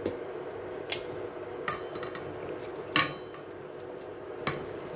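Metal tongs clinking against the sides of an aluminium cooking pot as a boiled half chicken is turned in its broth to check whether it is tender. There are about five sharp clinks, the loudest about three seconds in, over a steady low background hum.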